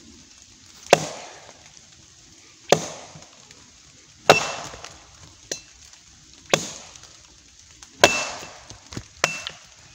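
Tramontina machete chopping into a dead wooden branch laid across a log: six sharp, heavy chops about one and a half seconds apart, with a few lighter knocks between them. Several strikes leave a brief thin ring from the blade.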